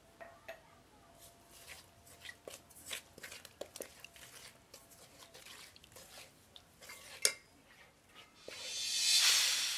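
Wooden spoon stirring maize flour and water in an aluminium saucepan, with repeated small knocks and scrapes against the pot. A sharper knock comes about seven seconds in, and a louder swelling rush of noise builds near the end.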